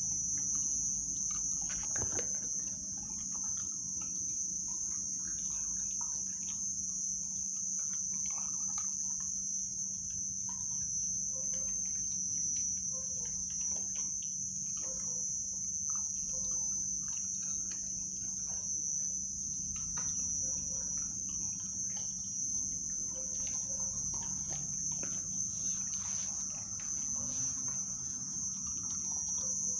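Crickets trilling steadily at a high pitch, with scattered faint clicks and smacks from an American Pit Bull puppy chewing raw food close by.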